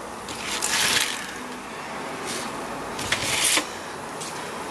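Handfuls of raw Chinese broccoli leaves rustling as they are scooped out of a plastic colander, in two bursts about half a second in and about three seconds in, over a steady hiss.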